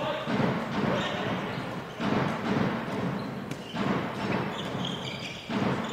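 Crowd noise in a sports hall, rising and dropping abruptly in regular swells about every two seconds, with a handball bouncing on the court floor.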